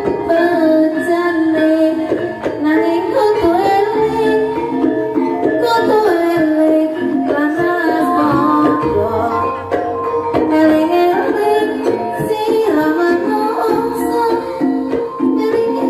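Javanese gamelan ensemble of gongs, kettle gongs, metallophones and hand drums playing continuously, with a woman singing a melodic vocal line over it through microphones.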